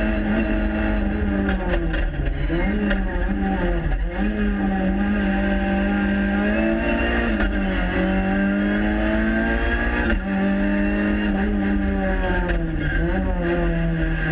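Renault Clio 3 Cup race car's four-cylinder engine at full effort, heard from inside the cabin. Its note climbs steadily, then drops sharply several times as the car shifts gear or comes off the throttle.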